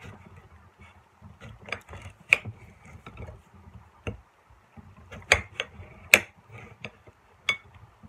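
Kitchen knife slicing through a lemon on a plate: irregular sharp clicks and taps as the blade comes down on the plate, the loudest a little over two seconds in and twice between five and six seconds in.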